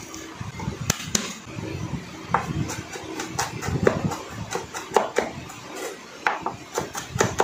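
Chef's knife chopping garlic on a bamboo cutting board: an irregular run of sharp knocks as the blade strikes the board.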